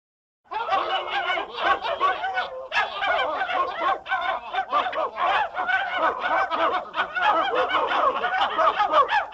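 Many dogs yelping and howling over one another in a dense, unbroken chorus that starts suddenly about half a second in.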